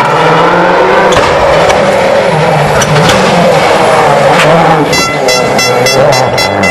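Rally car's turbocharged engine revving up and down through gear changes as the car is driven hard through a corner. From about five seconds in, a fast series of sharp crackles runs over the engine note.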